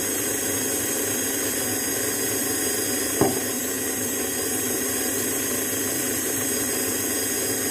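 Electric stand mixer running steadily with a high motor whine, its beater churning a soft butter-and-egg batter in a steel bowl. A single brief knock about three seconds in.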